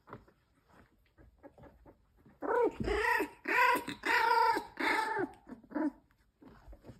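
Three-week-old puppies play-wrestling, one giving a loud run of about six high-pitched growling yelps over some three seconds, after a couple of seconds of soft scuffling.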